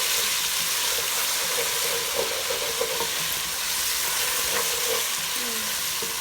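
Sliced onions with garlic and ginger sizzling as they fry in hot oil in a pot, a steady hiss, with a few light clicks from stirring.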